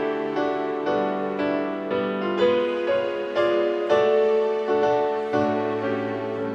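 Piano playing a slow hymn in chords, each chord struck and then fading, with a low bass note coming in near the end and holding.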